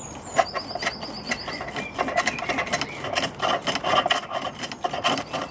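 Chisel cutting a spinning billet on a bungee-sprung treadle pole lathe: repeated bursts of scraping and shaving as the work turns back and forth with each treadle stroke, mixed with sharp clicks and knocks from the lathe.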